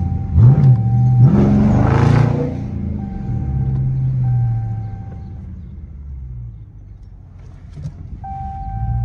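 Straight-piped Dodge Charger R/T's 5.7-litre HEMI V8 heard from inside the cabin while driving. A quick blip of revs, then a loud run-up in revs under acceleration about a second and a half in. It settles into a steady drone that fades, then picks up again near the end.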